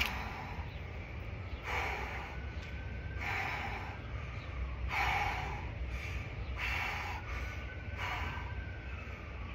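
A man breathing hard and rhythmically while sitting in cold plunge water: five forceful breaths, evenly spaced about every second and a half, over a steady low rumble.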